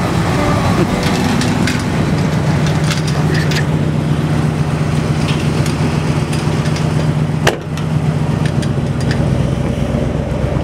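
Tow vehicle's engine running steadily as it slowly pulls a loaded car trailer around, with scattered clicks and rattles and one sharp knock about seven and a half seconds in.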